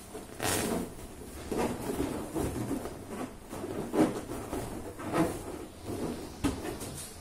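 Inflated latex balloons rubbing against one another and against hands as a balloon cluster is pushed and adjusted, in irregular strokes with several louder ones.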